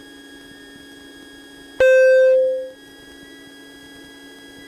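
A single loud beep tone about two seconds in, holding for about half a second and then fading away. It sounds over a steady low hum in the Cessna 150's cockpit audio.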